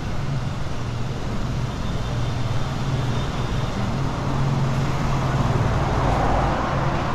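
City street traffic: a steady mix of vehicle noise with a low engine hum running under it.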